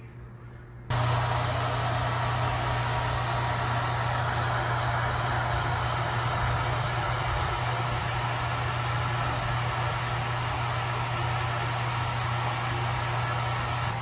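Hair dryer switched on about a second in, then running steadily: a rush of blowing air over a low motor hum.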